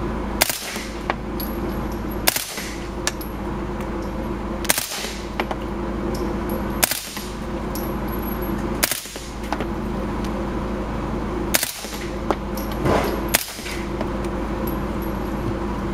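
Suppressed HK MP5-SD 9mm submachine gun firing short full-auto bursts, about seven of them roughly every two seconds, over a steady background hum.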